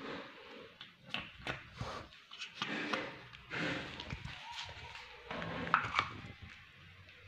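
Irregular taps, clicks and rustling as cats move about and eat on a tiled floor, with a short high squeak about six seconds in.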